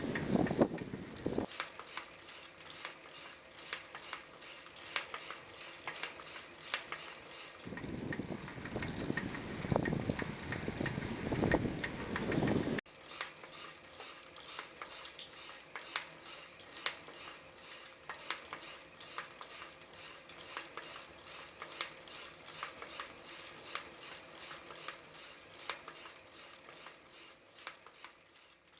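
Rear freehub of a city bicycle giving a run of light metallic clinks, a few a second, as the wheel turns: the 'kan-kan' abnormal noise that comes from the freehub rather than the rear hub bearing, a sign that it will fail before long. A low rumble sits under the clinks in the first second and again from about 8 to 13 s.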